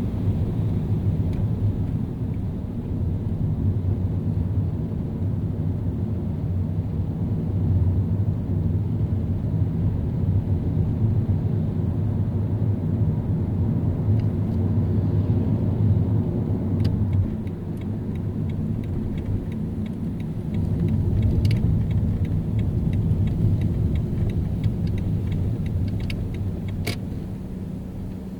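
Car driving in city traffic: a steady low rumble of engine and tyres, with a run of light clicks in the second half. The rumble fades near the end as the car slows.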